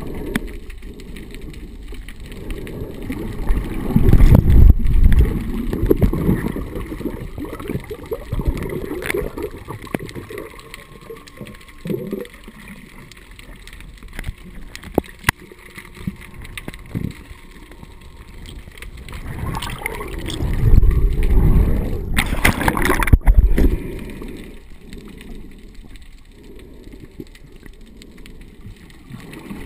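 Muffled underwater water noise on a submerged camera: low sloshing and gurgling as the water moves around it, with a few sharp clicks. It swells louder twice, a few seconds in and again past the two-thirds mark.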